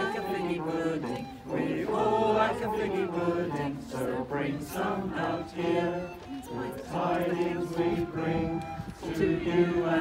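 A choir of many voices singing together, in sung phrases with short breaths between them.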